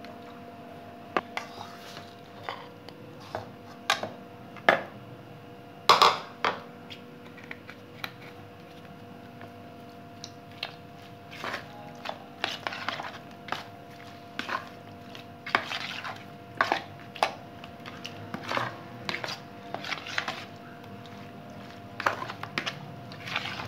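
A metal spoon clinking and scraping against a bowl in irregular knocks while diced raw chicken is mixed with soy sauce and spices for a marinade, over a steady hum.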